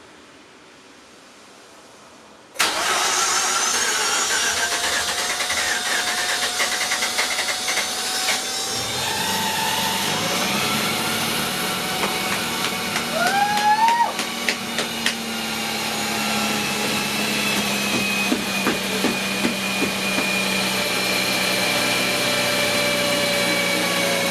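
Mazda RX-8's rebuilt two-rotor Wankel rotary engine starting for the first time after the rebuild. It fires suddenly about two and a half seconds in and then runs steadily.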